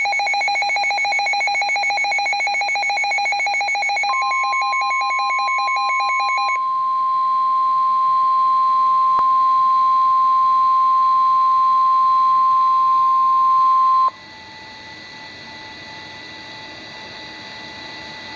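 A weather alert radio receiver's rapidly pulsing electronic alarm beep. About 4 s in, the NOAA Weather Radio 1050 Hz warning alarm tone starts: one steady tone that overlaps the beeping, holds for about ten seconds, and cuts off abruptly. After it comes faint radio hiss.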